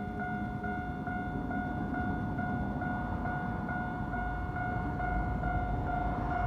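Keikyu Line level-crossing warning bell ringing steadily at about two strikes a second, over the rumble of a train that grows louder about five seconds in.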